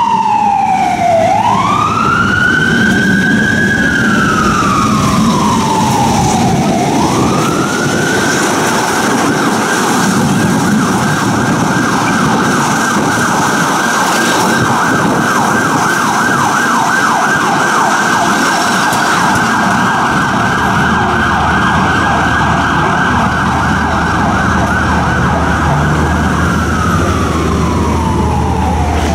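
Emergency vehicle siren wailing. Its pitch sweeps down and up twice, then holds high with a fast flutter for most of the time, and slides down again near the end.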